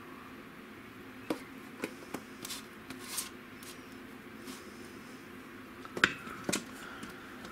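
Wooden spoon scooping stuffing out of an Instant Pot's stainless steel inner pot and pressing it into an aluminum foil tray: scattered soft taps and scrapes, with two sharper knocks about six seconds in. A steady low hum runs underneath.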